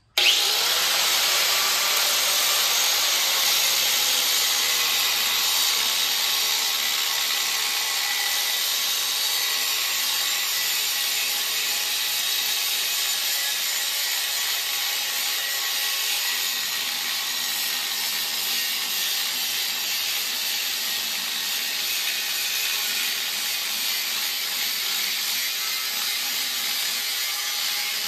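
Angle grinder grinding a piece of steel plate, taking the corners off. It comes on suddenly and runs steadily under load.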